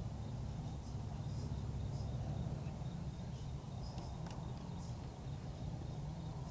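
Outdoor night ambience: a steady low rumble with the faint, rapid, even chirping of insects and a few short higher chirps.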